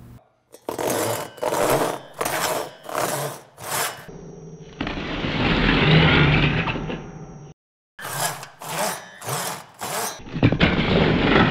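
Two-man crosscut saw rasping back and forth through a Nike TW 2010 golf shoe, in quick strokes of about two a second. In the middle and near the end the strokes give way to a long, slowed-down grinding rasp as the teeth chew through the shoe.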